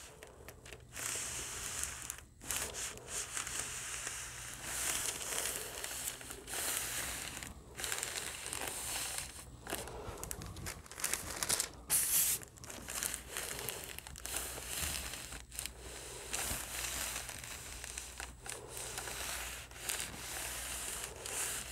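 Parchment paper crinkling and rustling as a household iron is slid back and forth over it on a quilt top, with a hand smoothing the sheet. The rustle comes and goes with each stroke, over a faint low steady hum.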